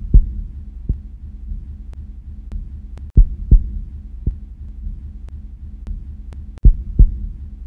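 Deep heartbeat-style double thumps, a pair about every three and a half seconds with a lighter single thump between, over a steady low drone. Faint sharp ticks are scattered through it. This is a cinematic intro sound effect.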